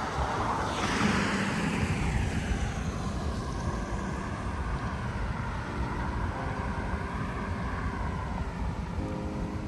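A vehicle passing close by on a wet road: its tyre hiss sweeps down in pitch over the first couple of seconds, then gives way to a steady wash of noise.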